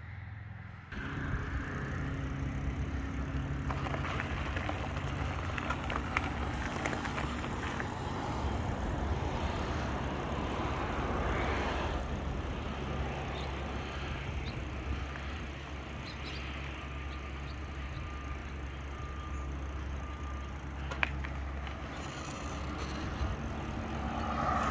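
Steady rumble of riding along on a Lectric e-bike: wind and tyre noise, which steps up about a second in.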